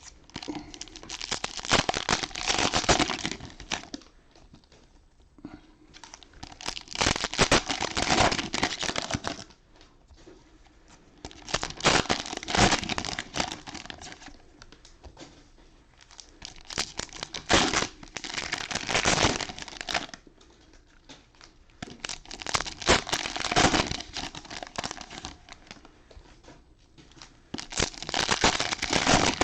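Cellophane wrappers of trading-card cello packs being torn open and crumpled, in about six bouts of crinkling a few seconds apart.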